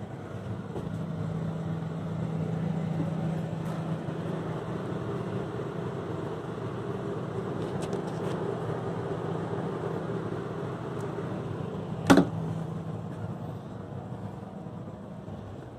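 Steady hum of a convenience store's refrigerated drink coolers, with a single sharp knock about twelve seconds in.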